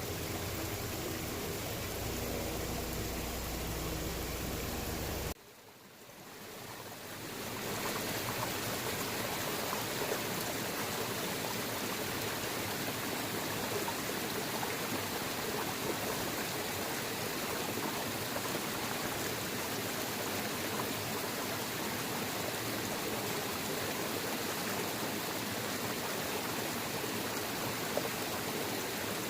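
Steady rushing water of a waterfall. About five seconds in it cuts out abruptly, then fades back in over a couple of seconds: a splice between two recordings. The stretch before the cut has a deeper rumble than the one after it.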